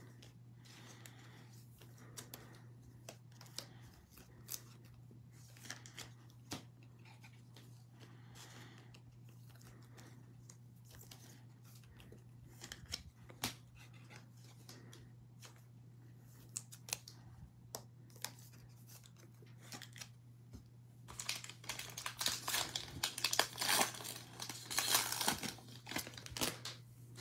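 Scattered small clicks and taps of trading cards being handled, then, about three-quarters through, several seconds of loud crinkling and tearing as a foil Mosaic football card pack is ripped open. A steady low hum runs underneath.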